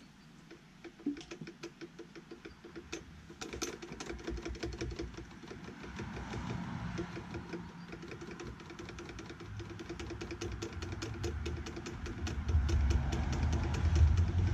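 Rapid mechanical clicking, about five clicks a second. A low rumble grows louder near the end.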